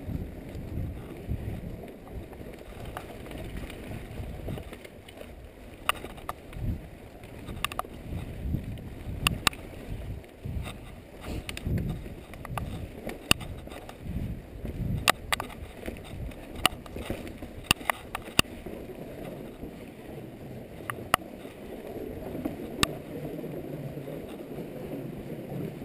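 Mountain bike riding downhill over rocky singletrack and wooden boardwalk: continuous tyre and trail rumble with frequent sharp clacks and rattles from the bike over bumps.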